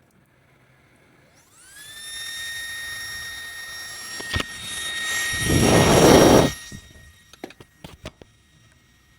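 Small high-speed electric motor tool whining as it spins up and then runs at a steady high pitch, with a loud rough burst of noise for about a second after the midpoint that cuts off while the whine carries on, followed by a few light clicks.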